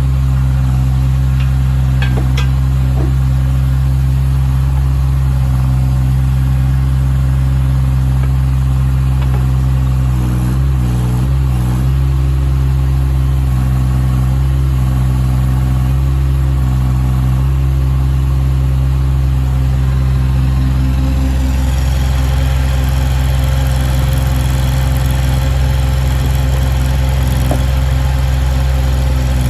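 JCB 8008 micro excavator's diesel engine running steadily. About two-thirds of the way through, its note shifts and takes on a brighter, busier edge.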